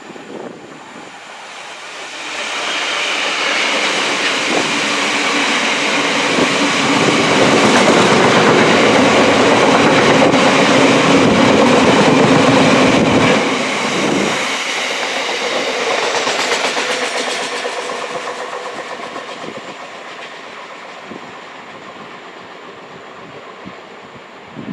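A train passing: it comes in over about two seconds, is loudest about halfway through, drops off suddenly, then fades away slowly.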